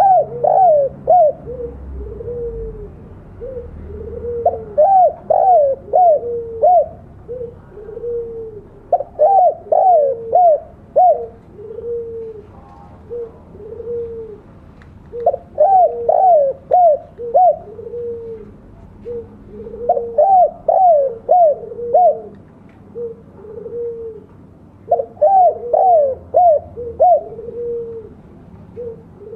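Spotted dove (tekukur) cooing: a group of four or five quick, higher coos comes about every five seconds, with a steady run of lower coos in between.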